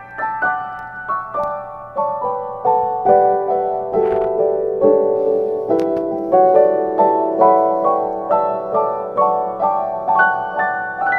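Background music: a gentle solo piano melody of plucked-sounding notes, each ringing and fading, about two or three a second.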